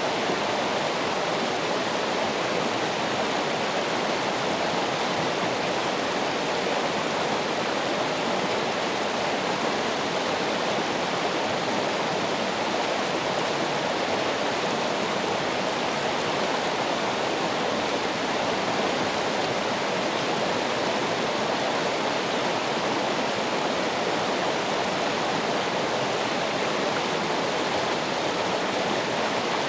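Running water rushing steadily, like a stream or small waterfall, an even unbroken wash with no separate splashes.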